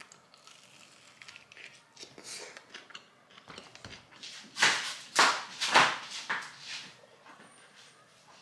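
Faint chewing of a bite of seeded bagel sandwich, with small crunchy crackles. About halfway through come four short, loud swishes about half a second apart.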